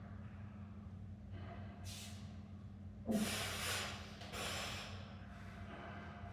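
A person breathing hard, with several forceful, noisy exhales. The loudest starts sharply about three seconds in. A steady low hum runs underneath.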